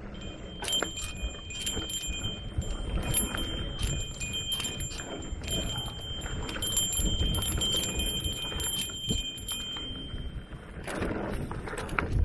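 Mountain bike rolling down a dirt singletrack: a low rumble with knocks and rattles as the tyres and frame take the bumps. Over it a high metallic squeal rings from about half a second in until about two-thirds of the way through.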